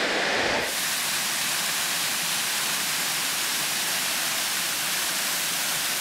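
Waterfall pouring down a tiered, layered rock face: a steady rushing hiss of falling water. Just under a second in, it changes abruptly to a brighter, hissier rush.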